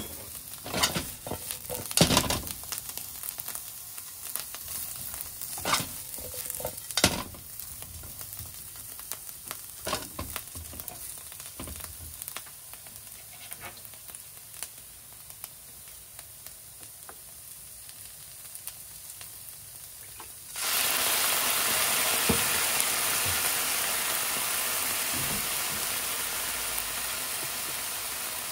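Bamboo shoot wedges sizzling in oil in a nonstick frying pan. A slotted spatula knocks and scrapes against the pan as the pieces are turned over, mostly in the first few seconds. The sizzle suddenly turns much louder and stays that way about two-thirds of the way through.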